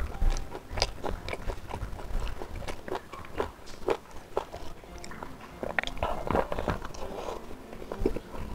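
Close-up chewing and mouth sounds of a person eating spicy smoked beef (sei sapi) with rice, heard as quick, irregular clicks and crunches, along with fingers working the rice and meat on a banana leaf.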